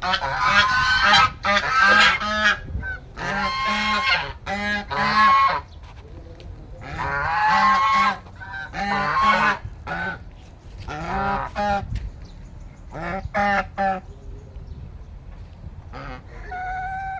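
An animal calling loudly and repeatedly, in runs of several calls separated by short pauses.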